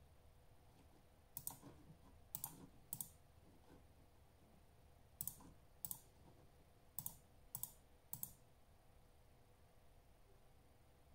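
About eight sharp clicks, several coming in quick pairs a half-second apart, scattered over several seconds.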